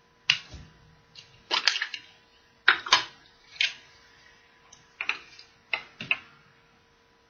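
Small plastic toy rings being handled, clicking and clattering against each other and the table in about a dozen irregular sharp clicks, some in quick clusters.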